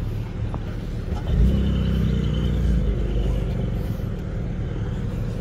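A car engine running with a steady low rumble, which swells louder for a moment about a second and a half in.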